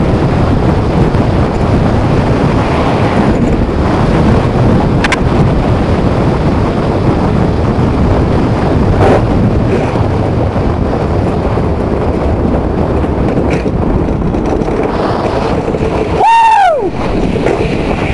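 Skeleton sled running at speed down an iced track, heard from a camera taped to the slider's helmet: a loud, steady rush of wind on the microphone over the rumble of the sled's steel runners on the ice. About 16 seconds in, a brief tone sweeps down in pitch.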